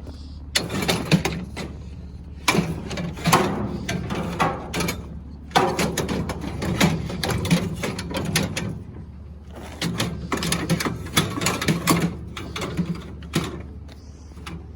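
Scrap metal clanking and rattling in rapid bursts as a small metal stand is shoved and fitted into a loaded trailer of junk, in four runs of a few seconds each over a steady low hum.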